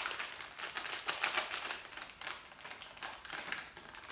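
Plastic LEGO mystery-bag packaging crinkling in the hands as the opened packet is handled, a quick irregular run of small crackles and clicks.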